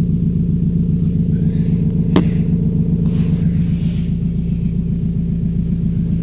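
Steady low rumble of a Škoda Octavia estate being driven, heard inside the cabin: engine drone and road noise at an even pace. A single sharp click about two seconds in.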